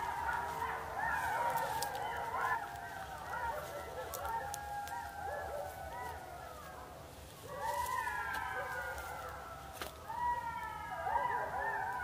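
A chorus of many wild animals calling at once, with overlapping rising-and-falling wailing cries. The chorus thins out around the middle and swells again about eight seconds in.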